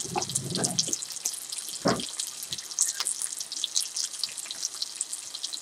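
Sugar-rubbed salmon fillets sizzling in oil in a nonstick grill pan: a steady hiss with small crackles and pops, and one brief knock about two seconds in.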